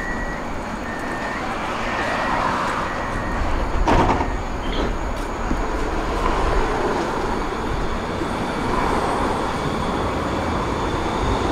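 Street traffic and tram noise: a steady hum of vehicles, with one short sharp knock about four seconds in. Near the end, a PESA Swing low-floor tram runs along the platform.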